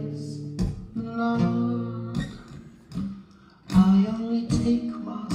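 Acoustic guitar strumming chords, one stroke about every three-quarters of a second. The strumming fades almost to nothing about three seconds in, then comes back louder.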